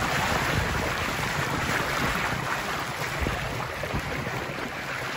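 Bow wave rushing and splashing along the lapstrake clinker hull of a small catboat sailing fast downwind, with wind buffeting the microphone. The rush eases a little toward the end.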